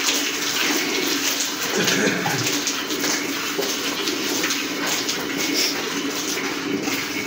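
Milk jets from hand-milking a cow squirting into milk in a metal bucket: a steady run of quick hissing squirts, one after another.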